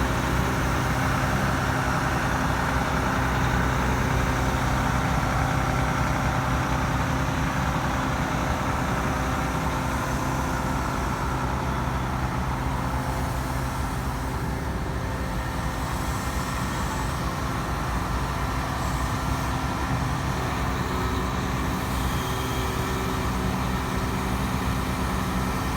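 Heavy diesel engine running steadily at a constant pace as an excavator works its way onto a truck from the side.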